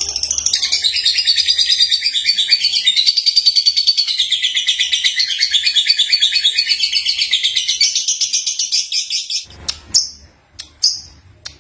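Young lovebird singing: a long, fast stream of high chattering twitters that breaks off about nine and a half seconds in, followed by two short separate chirps.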